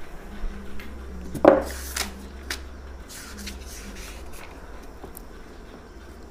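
A few light knocks and handling noises from someone moving things at a whiteboard, the loudest a sharp knock about a second and a half in, over a faint steady room hum.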